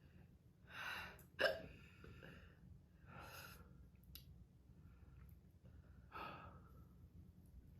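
A woman hiccuping, with a few short hiccups and breaths spread over several seconds; the sharpest and loudest comes about a second and a half in. The hiccups set in after eating hot pepper powder.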